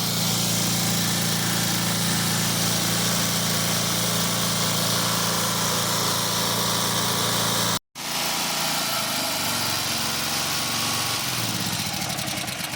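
Small gas engine of a 5.5 GPM pressure washer running steadily with a loud hiss over it. The sound breaks off for an instant near eight seconds, then comes back with a wavering engine note.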